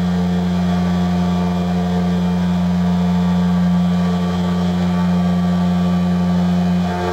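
Haas CNC mill running a cut: a steady spindle hum with fainter tones that come and go as the end mill works the metal under a flood-coolant spray, easing slightly near the end.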